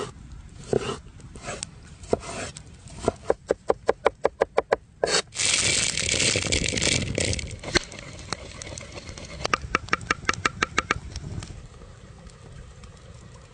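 Hand food-preparation sounds on wood: a run of quick, even clicks, then about five seconds in a loud rattling rush as peppercorns spill onto a wooden board, then another run of clicks.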